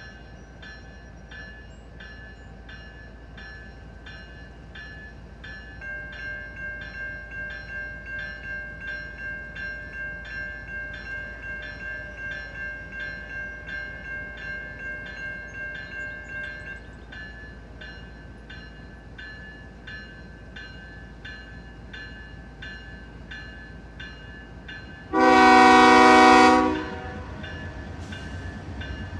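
A bell rings steadily about twice a second, louder for a stretch in the middle. Near the end a diesel locomotive's air horn sounds one long, loud blast of about a second and a half.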